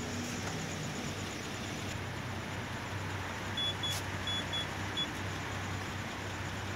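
Short, high electronic beeps from a car's warning beeper, mostly in quick pairs, starting about three and a half seconds in. They sound over a steady low hum and background noise, with a single sharp click near the middle.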